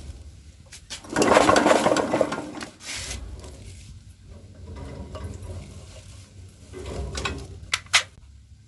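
Yanmar air-cooled diesel engine turned over by hand with its injector out of the head and connected to the fuel line, to test whether the injector sprays. There are uneven noisy bursts of cranking and spray, loudest about a second in, then two sharp clicks near the end.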